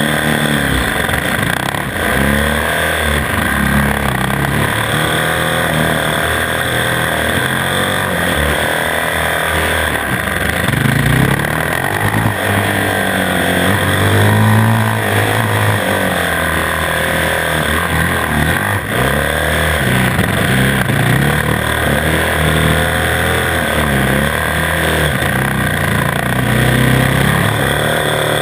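Onboard sound of a 450 cc single-cylinder supermoto motorcycle being ridden hard: the engine revs climb and drop again and again as it accelerates, shifts and slows for corners, over a steady hiss.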